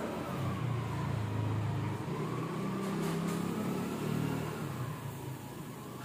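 A motor vehicle engine running, swelling soon after the start and fading near the end, with a faint whine that wavers up and down in pitch.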